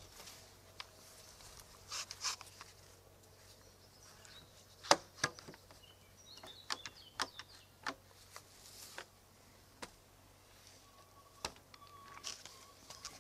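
Scattered light knocks and clicks of a wooden plank and tools being handled on a wooden workbench, the sharpest about five seconds in; the orbital sander is not running. Faint bird chirps in the background.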